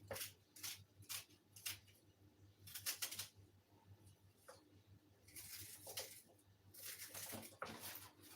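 Faint scraping and rubbing as diced onion is tipped into a bowl of puff puff dough mix: a few short scratchy strokes, then two longer scrapes near the end, over a low steady hum.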